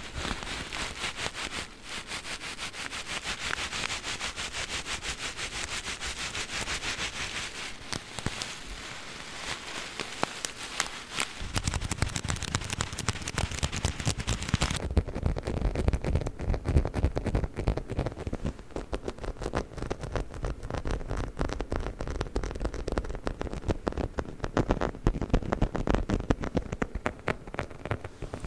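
A crinkly plastic package being handled close to the microphone, a dense, steady crackling. About fifteen seconds in it gives way to a chicken-shaped dog toy being handled, quick irregular tapping and rubbing with a deeper, duller sound.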